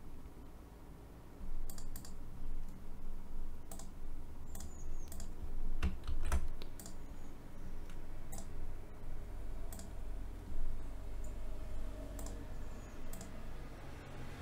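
Scattered sharp clicks of a computer keyboard and mouse, about a dozen at irregular intervals.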